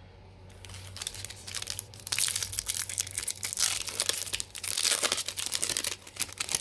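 Foil wrapper of a Topps Series 1 baseball card pack being torn open and crinkled, starting about a second in with many sharp crackles.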